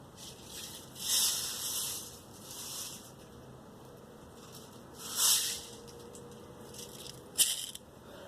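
BBs rattling and sliding as they are loaded into a BB gun's magazine, in several short hissing bursts with a sharper rattle near the end.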